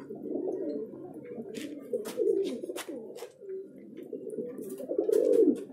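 A flock of domestic pigeons cooing, many low warbling coos overlapping, one louder coo about five seconds in. Scattered sharp clicks sound among the coos.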